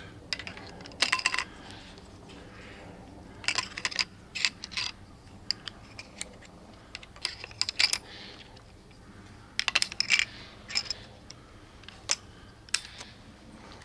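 Crossbow bolts being loaded into the Siege repeating crossbow's magazine. Several clusters of small, sharp plastic-and-metal clicks and rattles come a second or two apart.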